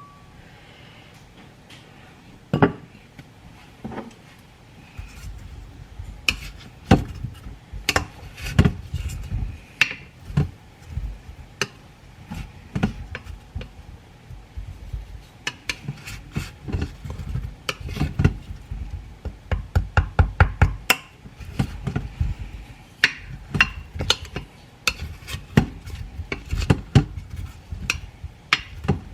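Kitchen utensils clinking and knocking against dishes and a crock pot, in irregular strokes that come thicker in the second half, along with dull low thuds of handling.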